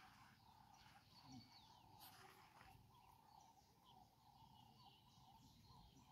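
Near silence: faint outdoor ambience with a few distant bird chirps.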